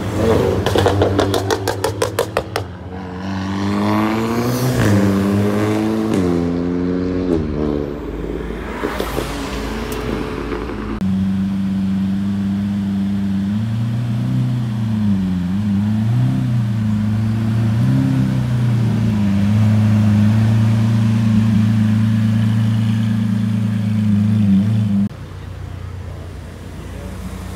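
A burst of rapid exhaust pops, then a tuned Seat Leon Cupra's engine accelerating hard, its revs climbing and dropping back at two gear changes. After that a Lamborghini Aventador's V12 runs at low revs for over ten seconds with a few blips of the throttle, cut off suddenly near the end by quieter car noise.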